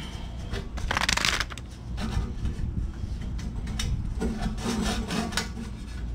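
Rusty exhaust pipe scraping and rubbing as it is twisted and worked loose by hand, with one louder rasping scrape about a second in and smaller scrapes after it.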